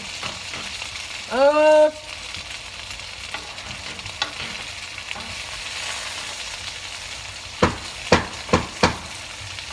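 Breaded chicken frying in a pan with a steady sizzle. A short pitched sound comes about a second and a half in, and four short sharp sounds come in quick succession near the end.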